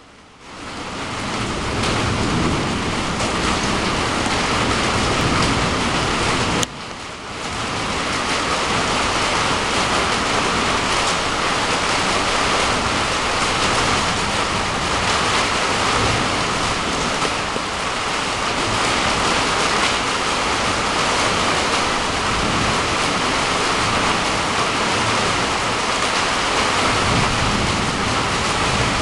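Heavy rain pouring steadily during a storm, a dense, even hiss that swells in over the first second or two and drops out briefly about seven seconds in.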